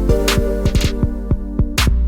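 Background music: a drum-machine beat with steady bass and sustained keyboard chords.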